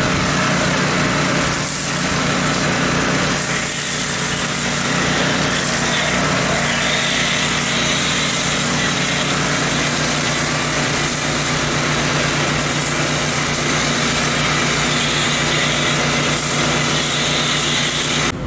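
Gas-engine pressure washer running steadily, its small engine running under the hiss of the water spray; the sound cuts off abruptly near the end.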